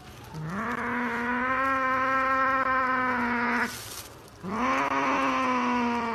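Cat yowling in two long, low drawn-out calls, each rising at the start, then holding a steady pitch for about three seconds before stopping abruptly.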